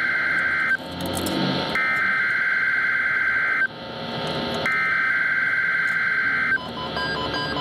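NOAA Weather Radio SAME digital header for a Required Weekly Test: the harsh warbling data screech sent three times, each burst about two seconds long with a short gap between. Near the end, electronic alert beeps in a stepping pattern start up.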